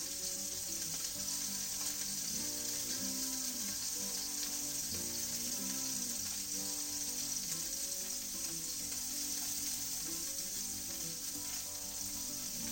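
Salmon fillets frying in hot olive oil in a frying pan: a steady sizzle with no break.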